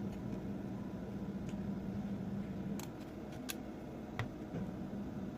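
Cordless vacuum cleaner battery pack being handled and fitted into its casing: a few light, sharp clicks and taps over a steady low hum.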